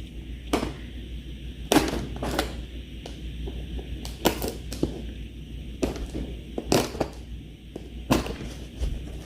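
A seam ripper slitting the tape on a cardboard box, with the cardboard being handled. It makes irregular short, sharp rips and knocks, about one every second.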